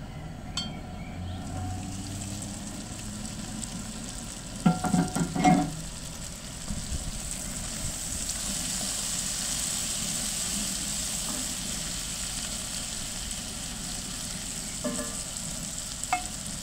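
Mixed vegetables sizzling steadily in a hot pan while a wooden spoon stirs them. A short run of loud spoon knocks and scrapes against the pan comes about five seconds in, with a few lighter taps near the end.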